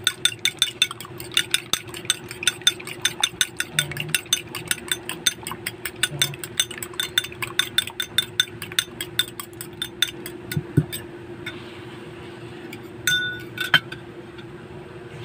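Fork beating an egg in a ceramic bowl: rapid clinks of the tines against the bowl, about five a second, stopping about eleven seconds in, then a couple of louder clinks near the end. A steady low hum runs underneath.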